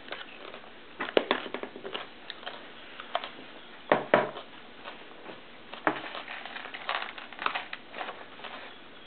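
Scattered taps and clicks of fingers and puff snacks on a plastic high-chair tray, with two sharper knocks about four seconds in.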